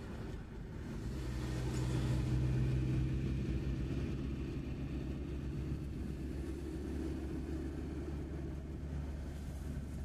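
Van engine and tyre noise heard from inside the cab while driving on an asphalt road. About a second in, the engine hum grows louder as the van picks up speed, then holds steady.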